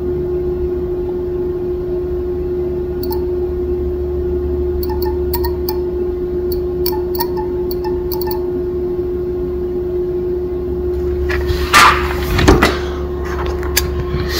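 Steady electrical hum from the energised small solenoid coil of a reed relay on clip leads, with a run of light clicks from its reed contacts switching. A louder rustle of handling comes near the end.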